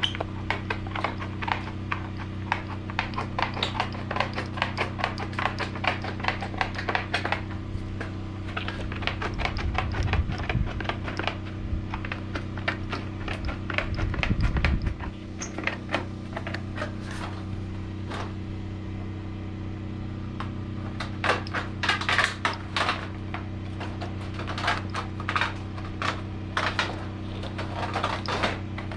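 Hand carpentry on framing lumber: runs of sharp knocks and clicks over a steady low hum, with a few deeper thuds midway.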